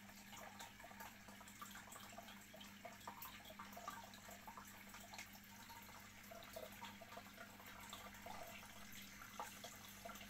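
Faint bubbling and trickling of water from a marine aquarium's circulation and filtration equipment, a steady patter of small pops and splashes over a low, steady hum.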